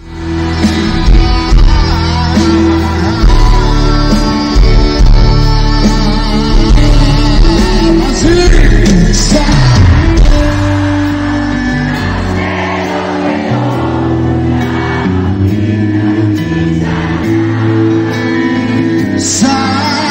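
Loud live pop music: a band with strong bass and sustained notes, and a man singing. The music cuts in abruptly, and the deepest bass drops back about twelve seconds in.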